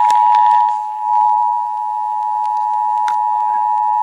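Emergency Alert System two-tone attention signal (853 and 960 Hz sounded together) broadcast over FM radio: a loud, steady dual tone. It is the alert that an emergency message follows, here a National Weather Service flood warning.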